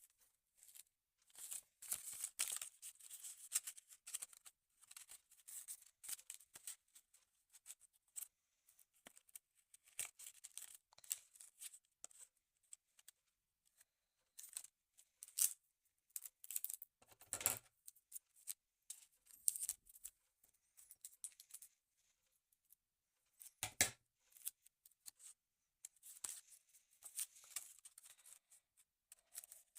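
Faint irregular rustling and crackling, like paper or packaging being handled and torn, with scattered clicks. Two louder short bursts come, one a little past halfway through and one about four-fifths of the way in.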